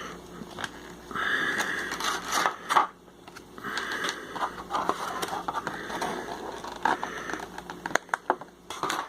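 Crinkling and scraping of a small, thin plastic packet being worked open by hand, in several spells with sharp clicks.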